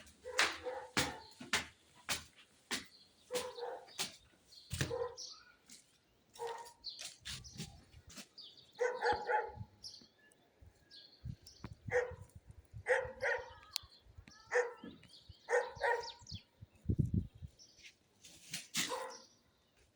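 A dog barking repeatedly in short clusters of barks, with scattered clicks and a couple of low thuds.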